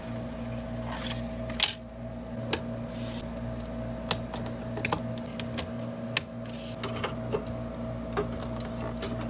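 Irregular small clicks and taps of hands handling a circuit board and the computer's plastic and metal parts, over a steady low hum.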